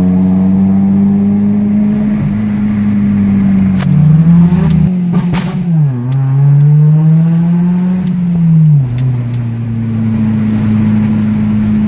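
A Toyota 3S-GE inline four-cylinder engine, heard from inside the cabin as the car is driven hard. Its note climbs, drops sharply and climbs again three times, as with gear changes. A few sharp crackles come around the first change.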